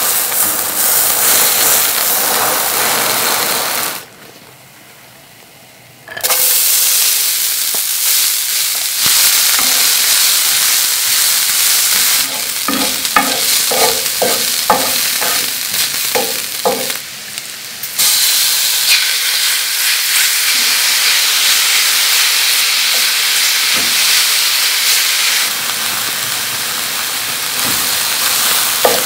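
Diced onions and then diced steak frying with a steady loud sizzle in a large black steel pan. A wooden spatula stirs and scrapes them, with a run of clicks against the pan in the middle. The sizzle drops away briefly about four seconds in, and it is louder from about eighteen seconds in, when the steak is frying.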